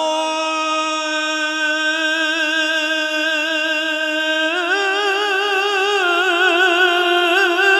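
A man singing a Punjabi naat holds one long, steady note. About four and a half seconds in, the note rises slightly and breaks into a quick, wavering ornament.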